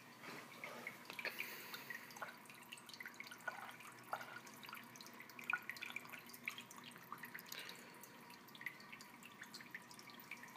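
Water trickling and dripping into an aquarium, quietly, as a steady faint splash with many small irregular plinks, like a filter's return flow breaking the surface of the tank.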